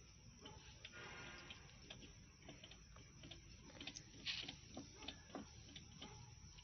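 Near silence: room tone with faint, irregular clicks and ticks scattered through it.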